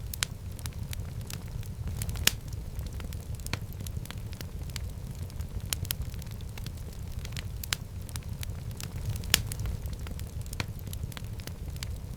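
Wood fire burning in a fireplace: a steady low rumble of flames with frequent sharp crackles and pops, two louder snaps about two seconds in and near the end.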